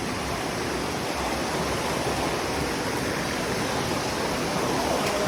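Steady rushing of a waterfall and its stream, an even roar of falling water with no breaks.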